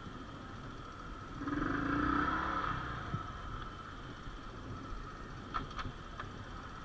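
Honda CD80 motorcycle's small single-cylinder engine running at low revs, picking up briefly about a second and a half in before settling back. A few light clicks come near the end.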